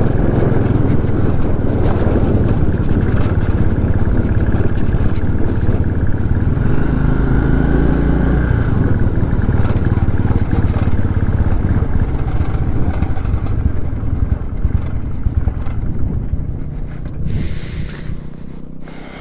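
Motorcycle engine running as the bike is ridden, a steady rumble that fades over the last few seconds as the bike slows.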